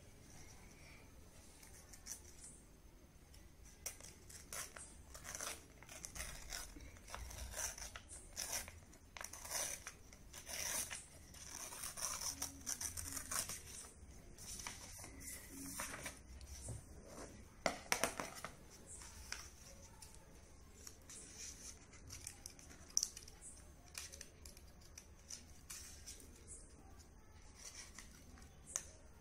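Scissors snipping through a sheet of coloured paper: a run of short, crisp cuts with the paper rustling between them. The cuts come thickest in the middle and are sparser near the end.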